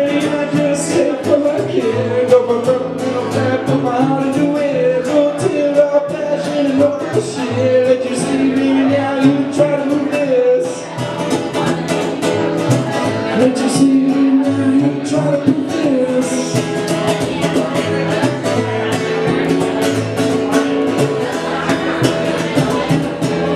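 Live acoustic music: a strummed acoustic guitar and a plucked upright double bass, with a man singing the lead vocal.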